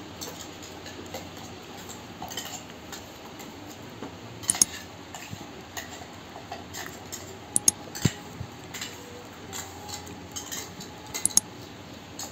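Metal spoon scraping and tapping inside a steel mixer-grinder jar as ground masala paste is scooped out into a pot. Light scrapes and clicks, with a few sharper metallic clinks about four seconds in, around eight seconds, and near the end.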